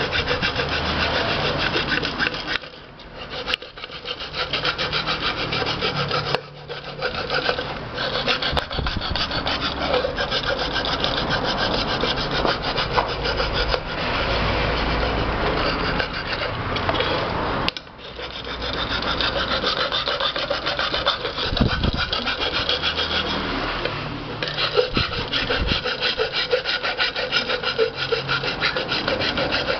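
Flat hand file rasping along the edge of an aluminium pressure cooker in continuous strokes, with a few short breaks. The metal is being filed down so that the rubber gasket does not catch.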